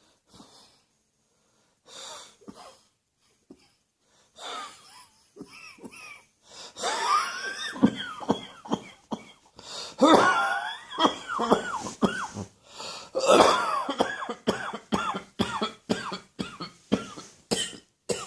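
A person coughing from allergies. It starts with a few faint coughs, then from about seven seconds in come three loud fits of rapid repeated coughing. It ends with a run of short single coughs.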